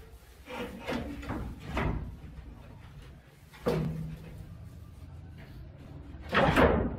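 Wooden bed slats knocking and clattering against the bed frame as a slatted bed base is lowered and settled into place. There are several light knocks in the first two seconds, a sharper knock a little past halfway, and the loudest clatter about a second before the end.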